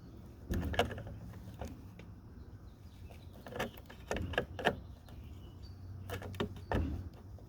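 Short clicks and knocks in three small clusters, from hand tools and parts being handled at the door jamb, over a low steady hum.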